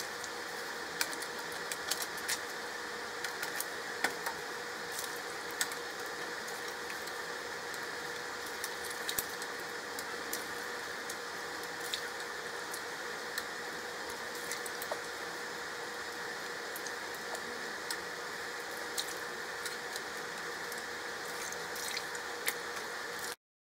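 Seafood-boil broth boiling in a stockpot on a gas stove: a steady bubbling hiss with scattered small pops and clicks, over a faint steady hum.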